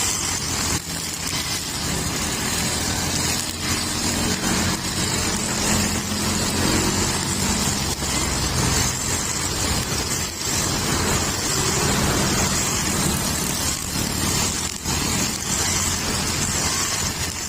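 Honda GX35 single-cylinder four-stroke brush cutter engine running under throttle, its nylon string head spinning through grass. The engine speed shifts a little now and then.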